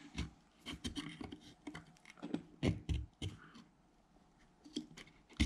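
Irregular clicks, small knocks and scraping from handling an electric radiator fan motor's magnets and steel housing as the motor is put back together, with one sharper knock near the end.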